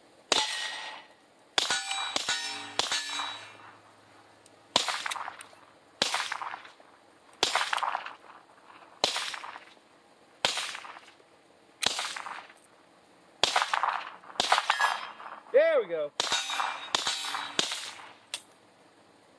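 A 9mm pistol with a Dead Air Mojave 9 suppressor fired through a magazine: about twenty suppressed shots at an uneven pace, singly and in quick pairs. Many are followed by a metallic ringing clang, as of steel targets being hit.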